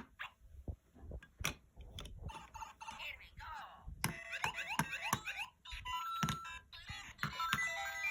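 Electronic game sound effects from an interactive LEGO Super Mario figure: a few sharp clicks at first, then a short voice clip, then rapid chirping beeps and bits of a tinny electronic jingle.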